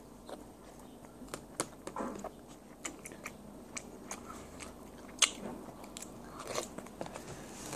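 Crunchy Nutri-Grain cereal being chewed, with a plastic spoon clicking and scraping in a plastic cup as pieces are scooped up. Scattered sharp clicks, the loudest about five seconds in.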